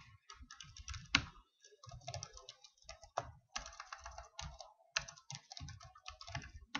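Typing on a computer keyboard: irregular runs of key clicks, with a few louder strikes.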